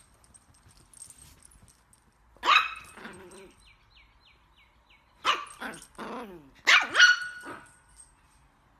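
Chihuahua puppy barking in short high-pitched barks: a single bark about two and a half seconds in, then a quick run of several barks near the end.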